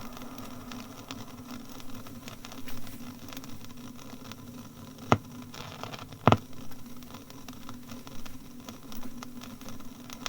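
Surface noise of an old BBC sound-archive disc: steady hiss and hum with a constant patter of crackle, and two loud clicks a little over a second apart past the middle.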